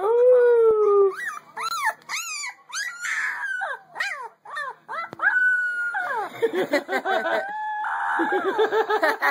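A husky puppy howling. It opens with one long, lower, slightly falling howl, the loudest call. Then comes a string of short, high-pitched, rising-and-falling yelps and a few longer held notes, and a dense stretch of overlapping howling in the last few seconds.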